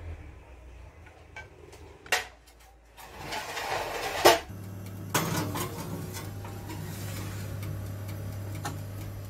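Utensils and a glass baking dish clattering on a kitchen counter, ending in one sharp loud clack about four seconds in. Then a steady low hum from the oven as the cake batter bakes.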